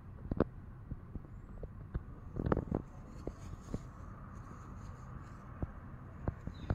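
Wind and handling noise on a phone's microphone: a low rumble with irregular soft thumps.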